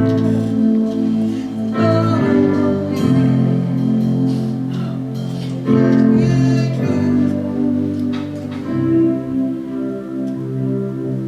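Music with slow, held chords that change every second or two, with some singing over it.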